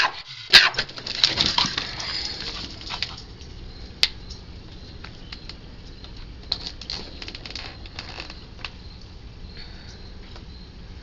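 A flurry of clicks, rattles and scuffles as the back door is opened and the Cavalier King Charles Spaniel hurries out, then a low steady outdoor background with a few faint clicks.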